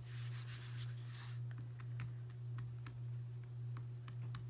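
Hands pressing and smoothing a thin sheet of air-dry clay onto a plywood board: a soft rubbing hiss for the first second or so, then scattered light clicks and taps, over a steady low hum.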